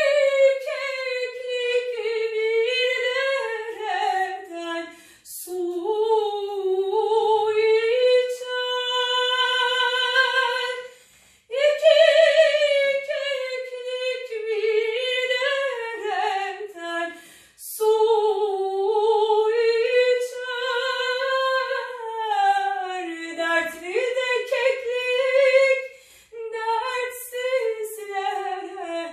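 A trained operatic female voice singing a Turkish folk song (türkü) unaccompanied, in long phrases with vibrato broken by short breaths; a long, steady held note comes about a third of the way in.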